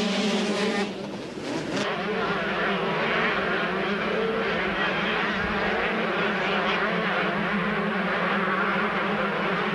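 125cc two-stroke motocross bikes running hard at high revs, a pack of them accelerating off the start. The sound changes abruptly and dips briefly between one and two seconds in, then continues as steady engine noise.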